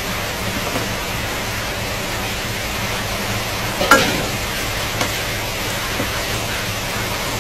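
Eggs frying in oil in a wok, a steady sizzle, with a metal spatula knocking sharply against the pan about four seconds in and tapping lightly twice after.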